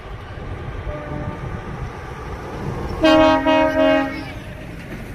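A truck's air horn sounding a multi-note chord in three quick blasts about three seconds in, over a low engine rumble.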